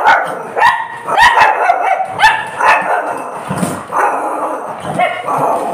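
Shih Tzu barking over and over, short barks coming roughly every half-second to second.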